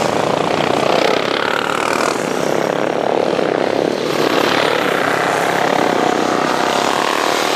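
Classic racing motorcycle engines at high revs as the bikes race past, the engine note rising and falling as they go by.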